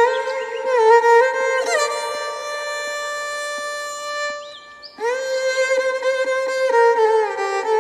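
Background music: a single melody line of long held notes with slides between them, fading out briefly just before a new note starts about five seconds in.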